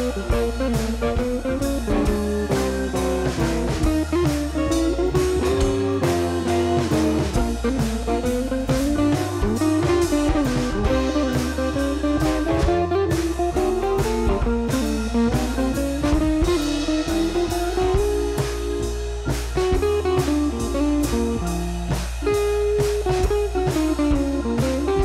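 Background music: a blues-style guitar melody over bass and a steady drum beat.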